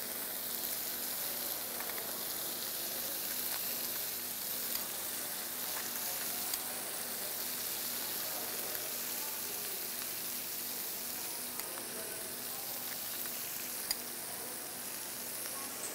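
Sea bass fillet and potatoes frying in oil in a non-stick pan: a steady sizzle as tomato, pepper and onion sauce is spooned in around them, with a few faint clicks.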